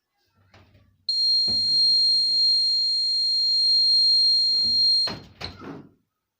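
Homemade laser security alarm's buzzer sounding a steady, high-pitched tone for about four seconds, then cutting off suddenly. A few short knocks of handling come before it and just after it stops.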